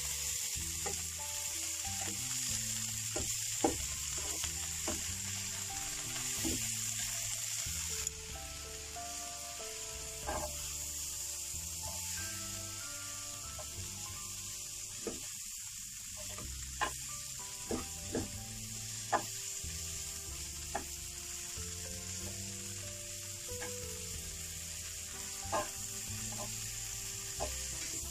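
Spinach sizzling in a hot frying pan with sautéed shallots, garlic and red chilli as it is stir-fried. Chopsticks click against the pan now and then. The sizzle drops a little about eight seconds in.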